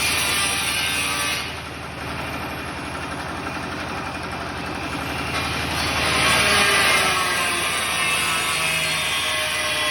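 A generator engine runs steadily under the grinding of an electric tile cutter. The cutting drops away about a second and a half in, leaving the generator alone, and starts again with a whine about six seconds in.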